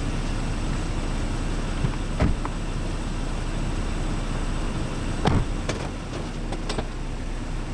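SUV engine idling, a steady low rumble, with two sharp knocks about two and five seconds in.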